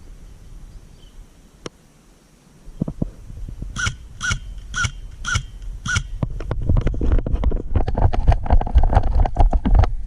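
A bird calls five times in quick succession, about two calls a second. Then comes a louder, rapid run of crackling clicks and rustles.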